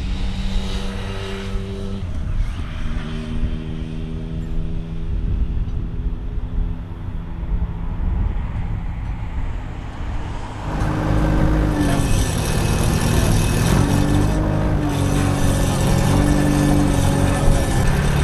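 Diesel engines of construction plant running steadily, growing louder and busier about two-thirds of the way through, where a compact loader and an excavator work close by lifting and pitching steel sheet piles, with some metallic clatter.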